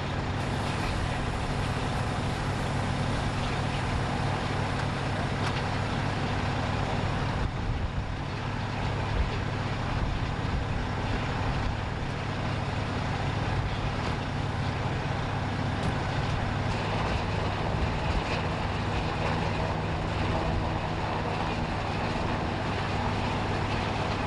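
Emergency vehicle engine idling: a steady low drone under a continuous rushing noise.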